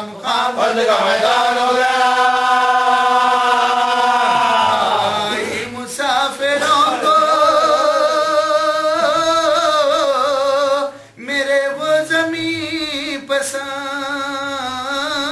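Unaccompanied man's voice chanting a mournful elegy for Imam Husain in Urdu. He holds long notes with wavering ornaments and breaks off briefly about six and eleven seconds in.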